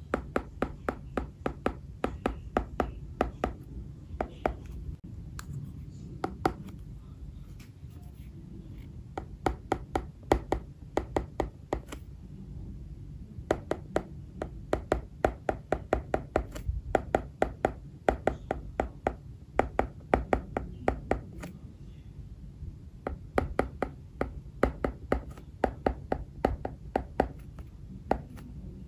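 Apple Pencil tip tapping and clicking on an iPad's glass screen while writing by hand, in quick runs of several clicks a second with short pauses between strokes, over a low steady hum.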